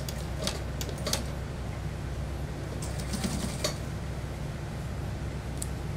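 Light clicks and fabric handling at an industrial sewing machine as trouser fabric is positioned under the presser foot: a few scattered clicks in the first second or so, a short cluster of them around the middle, and one more near the end, over a steady low hum.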